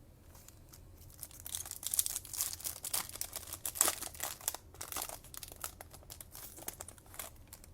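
A Topps Chrome trading-card pack's foil wrapper being torn open and crinkled. There is a dense run of sharp crackles from about a second and a half in, which thins out after about five seconds.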